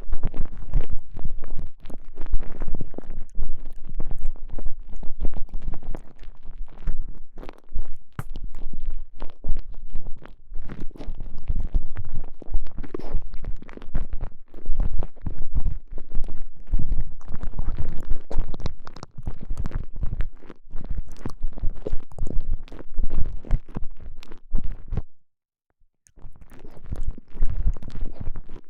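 Close, muffled squishing, crackling and low rumbling from a TENGA Egg's stretchy elastomer sleeve being handled with a microphone inside it. The sound is dense and irregular, with a brief silent break near the end.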